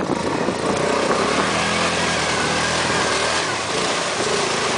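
Yamaha Grizzly 700 quad's engine running under throttle, holding a steady pitch for about two seconds in the middle, then easing off.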